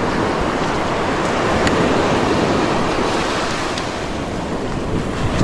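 Steady rushing noise of surf washing on the shore, mixed with wind buffeting the microphone, swelling a little midway.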